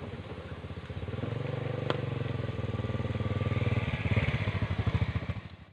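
Yamaha underbone motorcycle running as it rides up, growing louder as it nears, then easing off as it pulls up and stops. A single sharp click about two seconds in.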